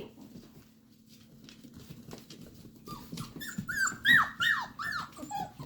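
F1b Bernedoodle puppies whimpering: a quick run of about eight short, high cries, each falling in pitch, starting about three seconds in, with faint scuffling before them.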